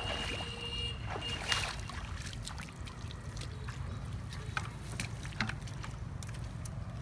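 Shallow river water splashing and sloshing as a man wades out carrying a hollow brick eel trap, with water trickling from the brick and a few sharp splashes and steps, over a steady low rumble. A thin high tone stops about a second and a half in.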